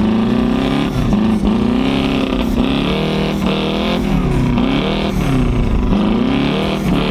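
Twin-turbocharged Subaru flat-four boxer engine heard from inside the cabin while the car is driven hard on snow. The revs climb and drop again and again, about once a second.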